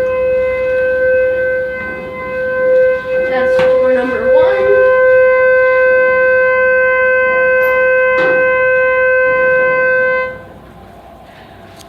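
Schindler HT elevator door alarm sounding one steady, unbroken tone that cuts off suddenly about ten seconds in. It goes off because the doors have been held open with the sensor blocked.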